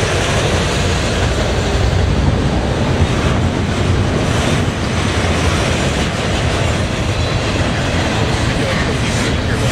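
Double-stack container well cars of a freight train rolling past: a loud, steady rumble of steel wheels on rail.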